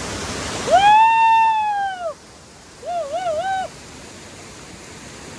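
A high voice gives a long 'ooh' that rises and falls, then a shorter wavering 'oh-oh-oh'. The rushing stream water heard at the start cuts off abruptly just before the first call.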